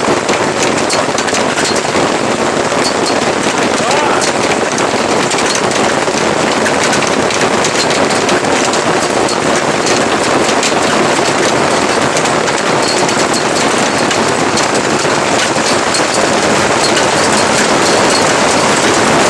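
Heavy hailstorm: a steady, loud clatter of large hailstones, about an inch across, pounding down in a dense, unbroken stream of impacts.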